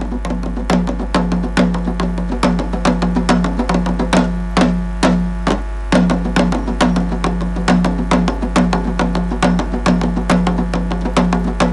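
Folk-dance music: a fast, steady beat of drums and clacking percussion over a sustained drone, with a low hum underneath.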